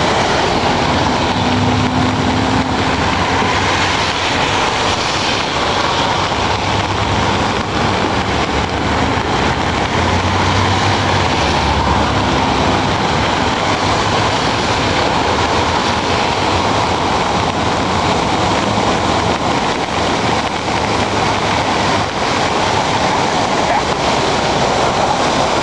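Steady rushing of the flood-swollen Puyallup River's water, with a faint low engine hum passing in the first few seconds and again about twelve seconds in.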